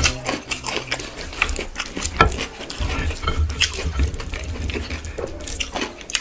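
Close-miked eating sounds: wet, squishy chewing and mixing of rice and curry, with many small irregular clicks and smacks.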